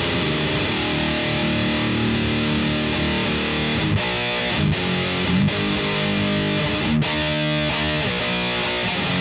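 Electric guitar played through a Grim distortion pedal, heavy distorted chords ringing with a few short, sharp stops in the middle.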